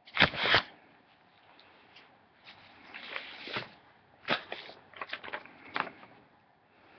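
Handling noise close to the microphone: a sharp rustle or bump just after the start, then scattered rustles and short clicks as a paper card is picked up and handled.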